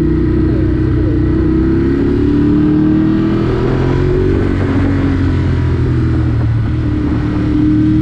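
A road vehicle's engine running while on the move, with low road and wind rumble. The engine pitch climbs steadily, drops about four and a half seconds in, and starts climbing again near the end.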